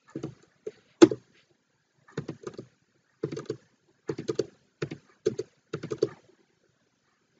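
Computer keyboard keystrokes in quick clusters of two or three, coming about every half second to second as short answers are typed at a series of terminal prompts. The loudest stroke comes about a second in.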